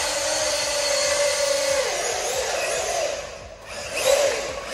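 Brushed electric motor and drivetrain of a 1:16-scale Loolinn RC truck whining steadily at speed; about two seconds in the pitch falls as the truck slows, and it speeds up again shortly before the end.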